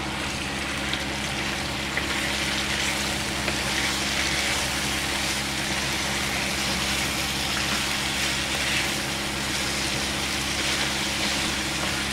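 Chicken pieces and sliced tomatoes sizzling steadily in hot oil in a wok, stirred with a wooden spatula, with a few light scrapes and taps of the spatula against the pan.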